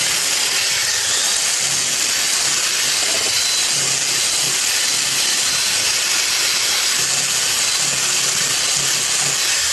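Electric drill with a scaling bit spinning against a fish's skin, stripping off the scales: a steady, even hiss with a faint high whine.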